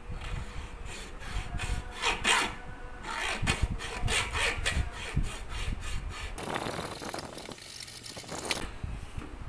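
Hacksaw cutting by hand through a large-diameter PVC pipe: a run of back-and-forth strokes of the blade in the plastic, the strokes coming closer together in the last few seconds.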